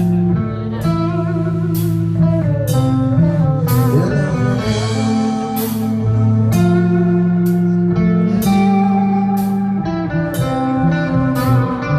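Rock band playing an instrumental passage: a guitar lead with bent notes over held bass notes, with drum and cymbal hits.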